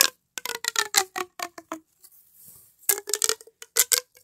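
Pink plastic pop tube being stretched and squeezed: a fast run of snapping clicks whose pitch falls, then after a short pause a second run of clicks about three seconds in.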